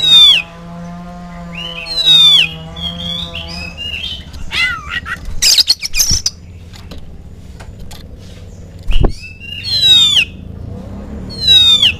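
Oriental magpie-robin (kacer) singing: loud, sharp whistles that sweep steeply down in pitch, about four of them, with a stretch of harsh, scratchy chattering in the middle.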